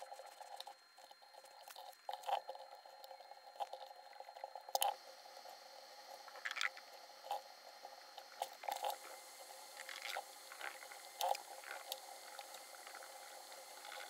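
Faint scattered clicks and short soft crackles of IC sockets being handled on a printed circuit board, and their pins being soldered with a soldering iron, with small sizzles as the solder and flux melt.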